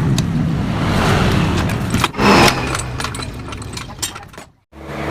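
Metallic knocking and clattering from work on a motorcycle exhaust muffler, with a brief louder harsh rasp a little over two seconds in; the sound breaks off near the end.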